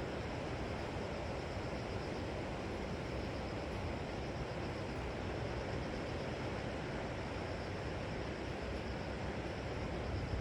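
Sea surf washing on the shore, a steady, even rumble with no single wave standing out.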